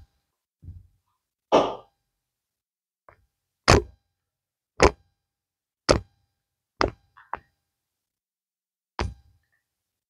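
A child's finger joints being pulled and cracked in a chiropractic adjustment: a series of about six sharp pops, most about a second apart, starting a few seconds in.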